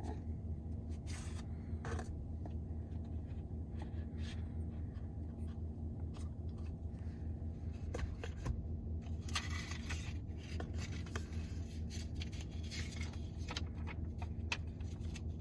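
A small cardboard box being opened and its contents handled: scattered scrapes, clicks and paper-and-plastic rustles, busiest past the middle, over a steady low hum.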